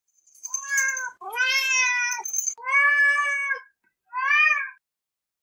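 Domestic cat meowing four times, drawn-out calls of about a second each that rise and fall slightly in pitch, the last one shorter.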